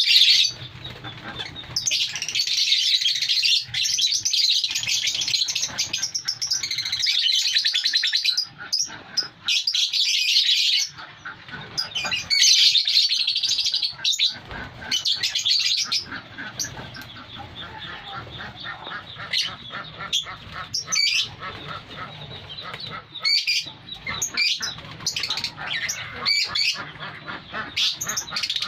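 A colony of lovebirds chattering and screeching in shrill, dense calls through the first half, thinning to scattered single calls later on.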